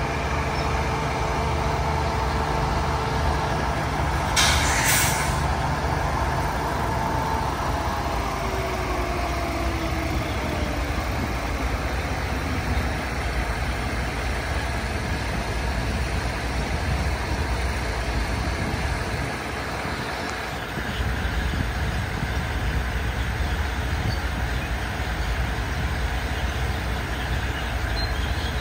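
Diesel passenger railcar's engines idling with a steady low rumble at the platform, with a short hiss of air, typical of air brakes, about four seconds in. A faint tone slides slowly down in pitch a little later, and the rumble drops briefly about two-thirds of the way through before picking up again.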